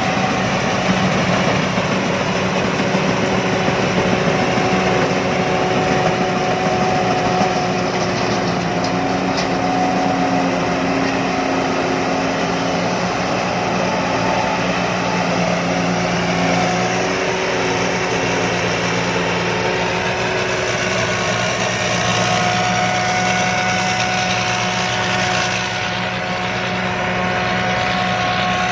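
Rice combine harvester engine and machinery running steadily at high revs, a continuous drone with a constant whine over it.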